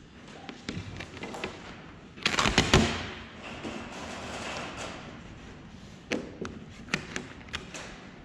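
Vinyl wrap film being worked over a car's window panel by hand: scattered taps and knocks, with a loud burst of thumps and rustling about two seconds in that dies away over the next couple of seconds.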